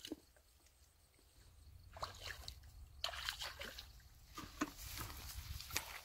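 Bare feet wading through shallow muddy water, with small irregular sloshes and splashes. These begin about two seconds in and get busier after that.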